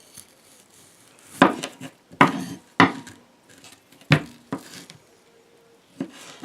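Bark River Gameskeeper knife slicing through partially frozen chicken breast: about five short cutting strokes, each ending in a sharp knock of the blade on the surface beneath.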